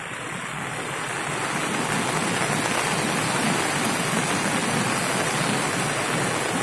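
A mountain river in flash flood after a cloudburst: a dense, steady rush of fast floodwater. It grows louder over the first two seconds or so, then holds.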